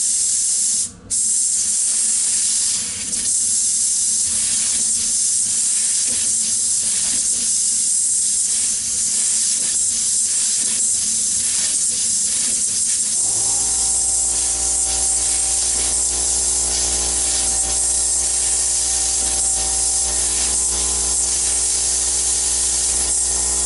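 Compressed air hissing steadily out of a homemade experimental air engine fed from a blow gun, with a short break about a second in. The air escapes through the leaking ports instead of driving the piston, which stalls at mid-stroke. About halfway through, a motor starts and runs on with a steady hum.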